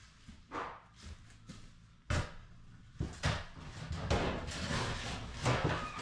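Demolition work: a string of irregular knocks and thuds as flooring and fixtures are torn out, with a sharper bang about two seconds in.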